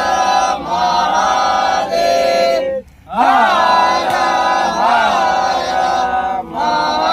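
Group of men chanting together loudly in unison, in long rising-and-falling phrases with a brief break about three seconds in.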